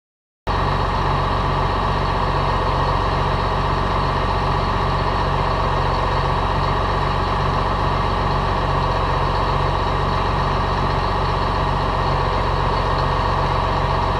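John Deere 4455 tractor's six-cylinder turbo diesel idling steadily, cutting in abruptly about half a second in.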